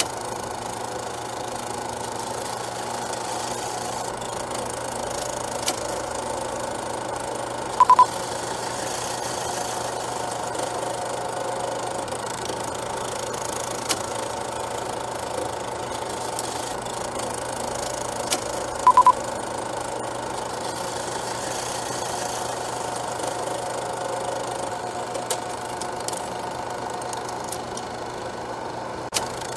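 Assembled sound-design soundtrack: a steady mechanical drone with a static-like hiss. Two short double beeps come about 8 and 19 seconds in, and a few faint clicks are scattered through.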